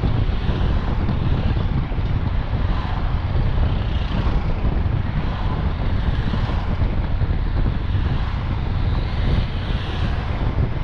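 Wind buffeting the microphone over the steady low rumble of a moving vehicle's road and engine noise.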